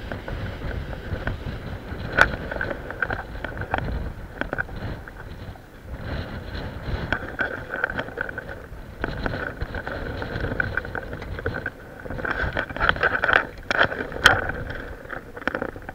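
Wind buffeting the microphone in an uneven low rumble, with irregular sharp clicks and rattles over it.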